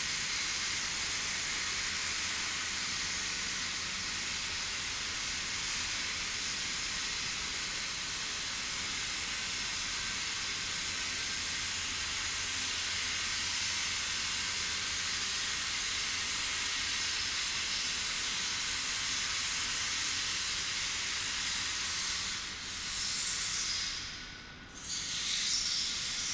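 Steady, even hiss, mostly high in pitch, that dips and swells a few times near the end.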